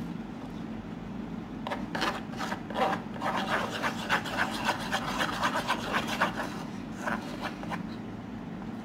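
A spoon stirring and scraping a thick, sticky slime mixture of glue, paint and flour around a plastic bowl: a quick run of short scrapes, busiest in the middle and thinning out near the end.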